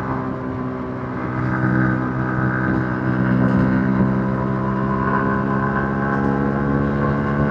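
Yamaha MT-15's 155 cc single-cylinder engine running through its stock exhaust while riding at a fairly steady throttle, easing off slightly about a second in and then picking back up.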